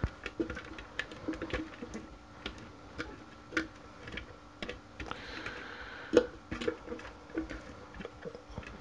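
Irregular light clicks and taps of a plastic food processor bowl and its fittings being handled as chopped parsnip is cleared out of it, with a short scraping rustle about five seconds in and a sharper knock just after. The motor is not running.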